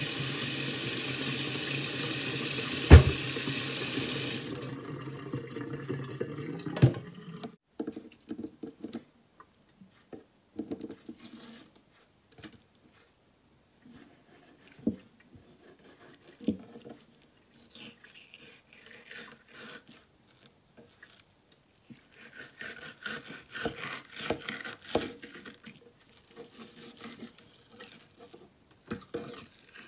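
Kitchen tap running into a stainless-steel sink, with one sharp knock about three seconds in, then shut off after about five seconds. After it come scattered knocks and clicks and stretches of scraping as a knife works a fish fillet on a wooden cutting board.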